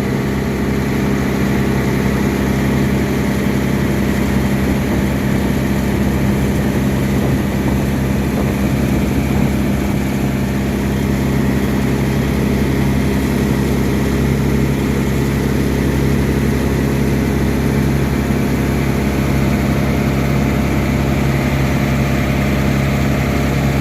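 A large engine running steadily at constant speed, a loud, even low drone that does not change.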